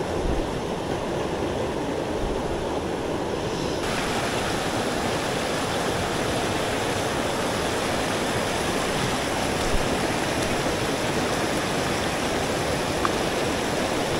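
Mountain headwater stream rushing steadily over rocks, a constant even wash of water. The hiss turns brighter and fuller about four seconds in.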